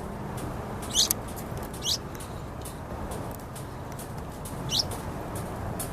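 Yellow-vented bulbul nestlings calling: three short, thin, high calls, each sweeping quickly upward in pitch, at about one second, two seconds and near the five-second mark, over a steady low background hiss.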